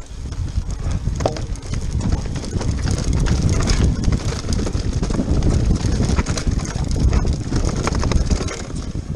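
Mountain bike ridden fast down a rocky dirt trail: a heavy low rumble of wind on the camera microphone and tyres rolling over stones, with frequent clicks and rattles from the bike over the bumps. It builds over the first second or two as the bike picks up speed.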